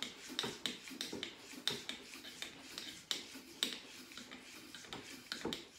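A brass cleaning rod with an oiled bore brush scrubbing back and forth in an AR-15 barrel's chamber throat: an irregular run of sharp clicks and scrapes, about two or three a second.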